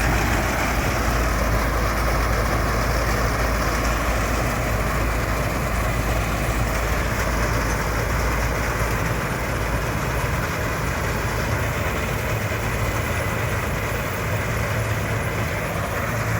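Wheat combine harvester running steadily, a dense machine drone with a deep engine rumble that eases slightly about two-thirds of the way through.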